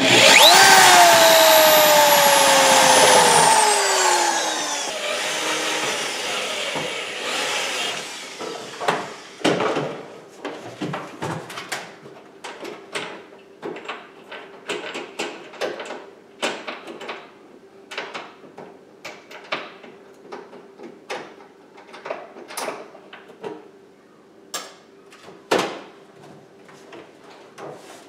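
Drill backing out a long microwave mounting screw: the motor whines loudly with its pitch falling over the first few seconds, then dies away. After that come scattered knocks and clicks of the appliance and cabinet being handled, with a faint steady hum.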